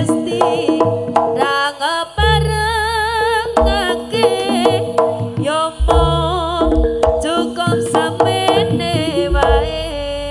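Jaranan gamelan-style accompaniment played live: deep drum strokes and a high wavering melody line with heavy vibrato over a steady ensemble.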